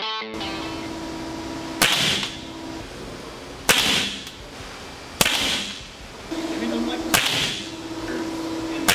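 Diana Chaser .22 CO2 air pistol firing five shots, each a sharp pop, about one and a half to two seconds apart.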